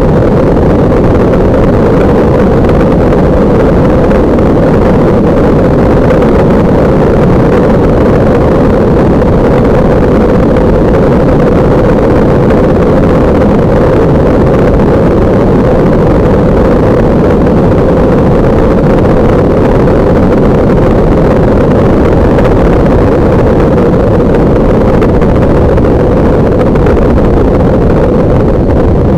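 Kolb Mark III ultralight's engine and pusher propeller running steadily, a loud dense drone heard from a camera mounted on the wing, with wind blowing across the microphone.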